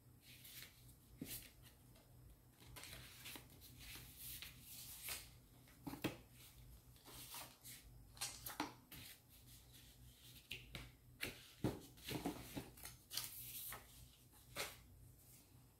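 Hands handling paper and cardboard packaging: a card sleeve and folded paper leaflets rustling, with scattered light clicks and taps at irregular moments.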